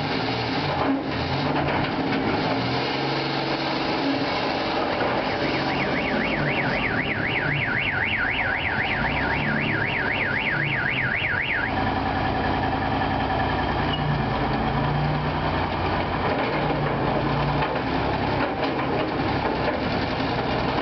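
A BMP-2 infantry fighting vehicle's V6 diesel engine runs as the vehicle drives off and back onto a trailer ramp. In the middle, a car alarm sounds a rapid warbling wail for about six seconds and then stops suddenly.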